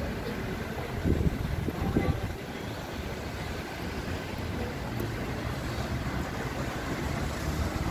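City street traffic noise: a steady rumble of cars on the road, with low gusts of wind on the microphone about one to two seconds in.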